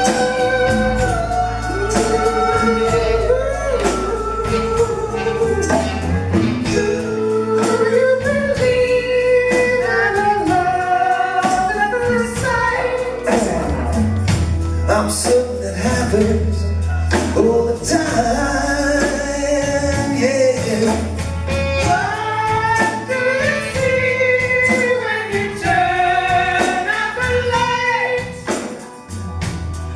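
Live rock band playing with singing: lead and backing voices over drums, bass, electric guitar and hand percussion. The sound drops briefly near the end.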